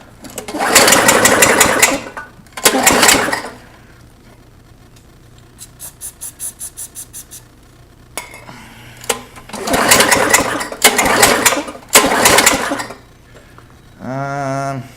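Tecumseh Vantage 3.5 hp lawn mower engine pull-started four times without firing, spinning over fast and freely on the recoil starter. The easy cranking is the sign of very low compression in a worn-out engine.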